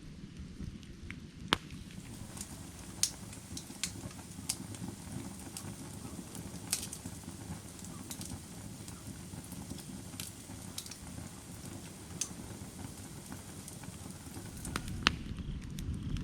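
Firewood burning: a steady low rush of flame with sharp crackles and pops scattered irregularly through it, the loudest pops about one and a half and three seconds in.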